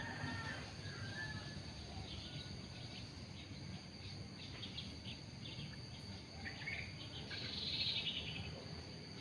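Outdoor ambience: a steady high-pitched insect chorus with short bird chirps at the start and a louder burst of chirping near the end.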